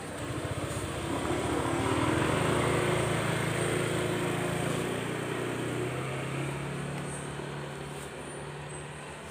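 A motorcycle passing by on the road: its engine note grows louder over the first two seconds or so, then fades away, the pitch dropping as it goes past.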